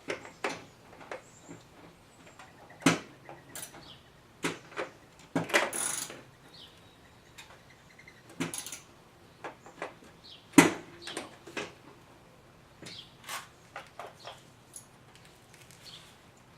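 Scattered sharp clicks and knocks at irregular intervals, the loudest about three seconds in and near the middle, with a few faint short chirps between them.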